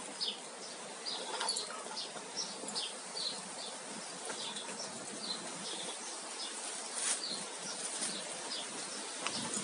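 A small bird chirping over and over, short high notes about twice a second, over a steady outdoor hiss.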